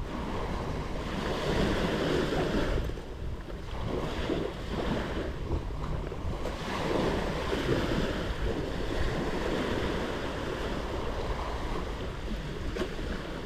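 Small sea waves breaking and washing up a sandy beach, the surf swelling and easing in slow surges.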